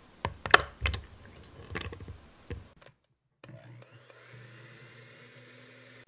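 A few sharp knocks and clatters against a bowl, then an electric hand mixer starts and runs with a steady motor hum as its beaters whip egg whites at the start of a French meringue.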